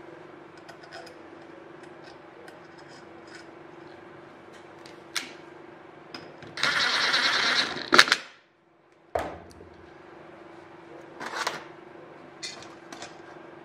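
Cordless drill-driver spinning a socket to run a bolt down through a washer and steel tube into a welding fixture, in one burst of about a second and a half that ends in a sharp click. Small steel parts click as they are handled, over a steady low hum.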